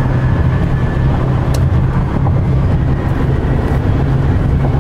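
Steady low rumble of tyres and wind inside the cab of an electric-converted Chevy pickup cruising at freeway speed. A single light click about one and a half seconds in.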